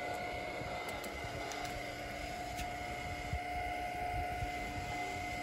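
Aircraft refuelling: a fuel pump running with a steady whine while fuel flows through the nozzle into the wing tank, over an uneven low rumble.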